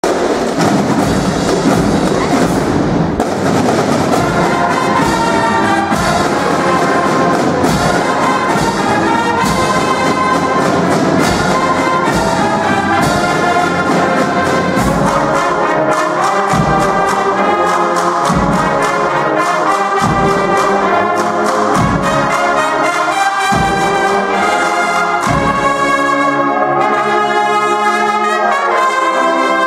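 Spanish brotherhood processional band (agrupación musical) of massed brass, trumpets and low brass, playing a piece together, with a regular strong beat of about one a second from about halfway through.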